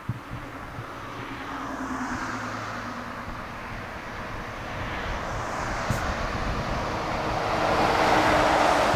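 A truck driving past: engine hum and tyre noise build steadily and are loudest about eight seconds in.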